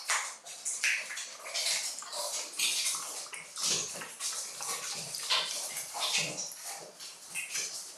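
Xoloitzcuintli puppy lapping water from a stainless steel bowl, in an irregular run of short wet laps.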